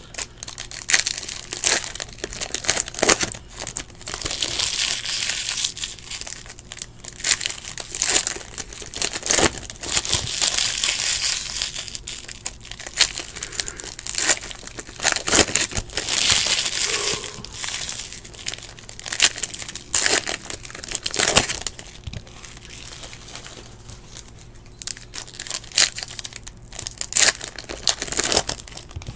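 Foil wrappers of Bowman Chrome baseball card packs crinkling as they are torn open and handled. The crinkling comes in irregular bursts, with scattered sharp clicks as the cards are flicked through by hand.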